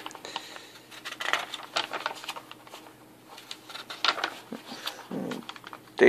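Pages of a paper instruction booklet being turned and handled: a scattered run of soft paper rustles and light clicks.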